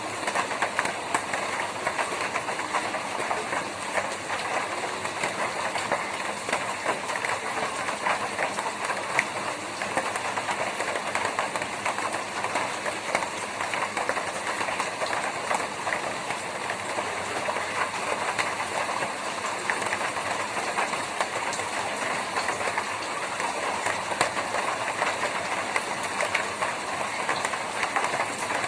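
Rain falling on a tin roof: a steady hiss with a dense patter of individual drops ticking on the metal.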